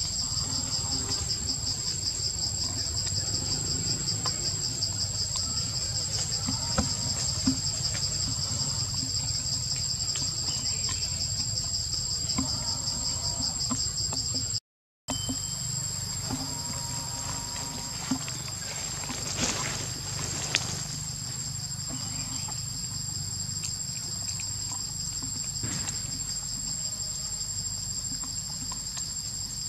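Insects chirring steadily in the forest, a dense, fast-pulsing high buzz with a thin, unbroken higher whine above it. It cuts out for a moment about halfway through, then carries on.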